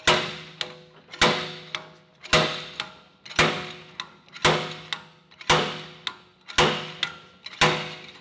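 Slide hammer bolted to an E46 BMW M3 rear wheel hub being yanked repeatedly, its sliding weight hitting the stop with a sharp metallic clank about once a second, eight blows in all. Each blow rings briefly, with a lighter knock between blows. The hub is being pulled out of its bearing carrier and has not yet come free.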